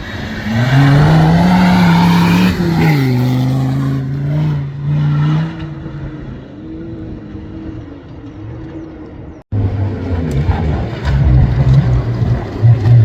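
Competition safari off-road racing car's engine working hard, its pitch rising and falling as the driver accelerates and backs off. The sound cuts out sharply about nine and a half seconds in, then the engine picks up again.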